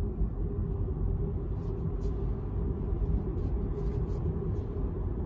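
Steady low road and tyre rumble inside the cabin of a Tesla electric car driving at town speed and gathering speed.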